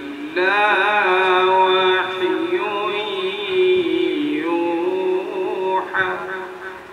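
A man's voice reciting the Quran in melodic qirat style: one long phrase sung on drawn-out, wavering notes that starts about half a second in and trails off near the end.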